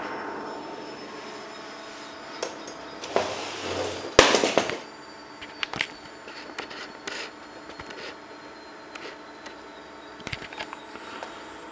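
Steady hum of a running projector's cooling fan, with a loud rustle and knock about four seconds in and scattered light clicks after it.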